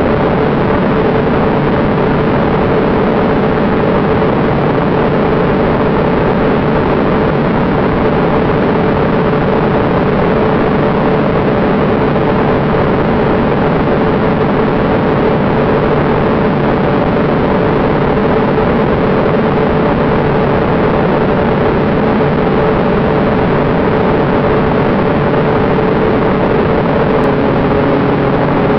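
Aircraft cabin noise in cruise flight: a steady rush of airflow with a constant engine drone carrying a few held tones. A lower tone joins near the end.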